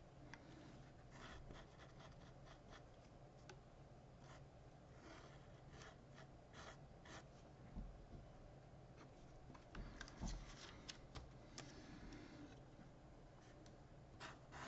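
Faint scratching of a Sharpie felt-tip marker on paper: short, irregular pen strokes with a quicker run of strokes about ten seconds in. A couple of dull low bumps are heard among them.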